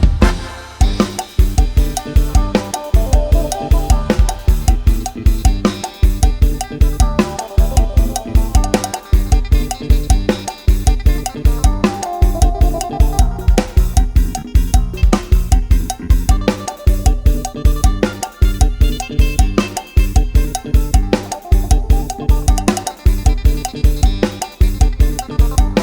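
Thai Isan 'lai hae' procession-style instrumental music: a drum kit keeps a fast, steady beat on kick, snare and cymbals under a repeating melody line.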